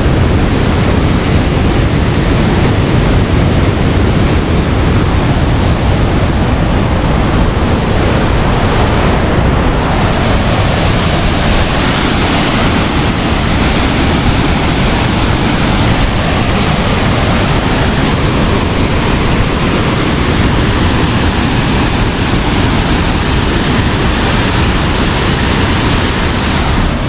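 Kadiyanlena waterfall and its rain-swollen river rushing in a loud, steady roar of falling and churning water. The river is in spate after rain, with more water than usual.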